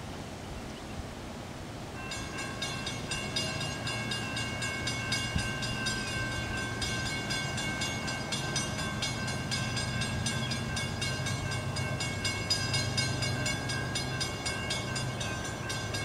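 Nathan K5HL air horn on an approaching CSX ES40DC diesel locomotive, sounding one long steady blast that starts about two seconds in and holds to the end. Under it is the low rumble of the freight train's diesel engines, growing as the train nears.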